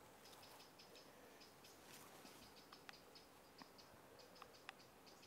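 Near silence: faint outdoor background of soft, high-pitched ticks several times a second, with a few slightly sharper clicks around the middle and toward the end.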